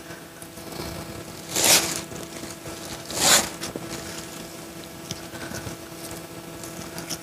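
Wet gill net being hauled from the water hand over hand and pushed into a woven sack: rustling, scraping and dripping, with two short louder swishes near the second and third seconds. A steady low hum runs underneath.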